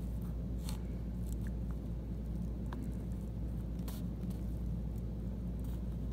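A steady low hum with a few faint, scattered clicks and crackles from fingers working a raw chicken wing's joint in a small wooden-stick test rig; the joint does not snap.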